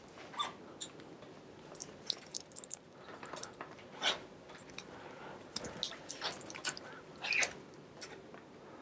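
Scattered light clicks and clinks of hand tools being picked up and handled, irregular and faint, about a dozen over several seconds.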